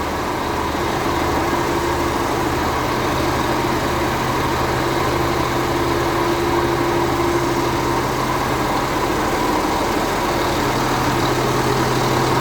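Rebuilt MAN diesel engine in a K-700 tractor idling steadily. The engine has a rustling from its viscous fan clutch bearing, which the owner points out.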